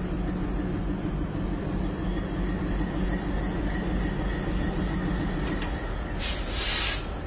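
Alco diesel locomotive engine running steadily, a low drone heard inside the cab. A short, loud hiss cuts in about six seconds in and lasts under a second.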